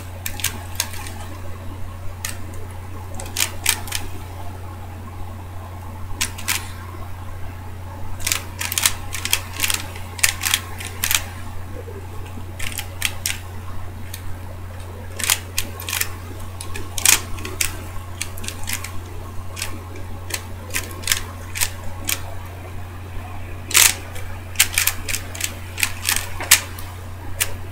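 DaYan ZhanChi 3x3x3 speed cube being turned fast by hand: irregular flurries of plastic clicks as the layers snap round, with short pauses between flurries. A steady low hum lies underneath.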